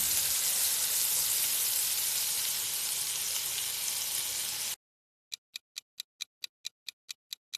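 Food sizzling in a frying pan: a steady hiss that stops abruptly after nearly five seconds. It is followed by a run of short, evenly spaced ticks, about five a second.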